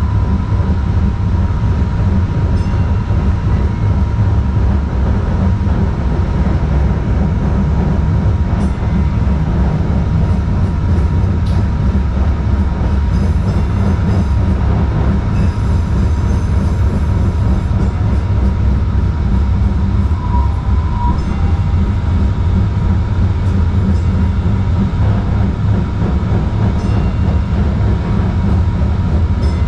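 DART Kinki Sharyo light rail car running along the track, heard on board: a steady, heavy low rumble from wheels and track with a faint steady whine, and a short tone about two-thirds of the way through.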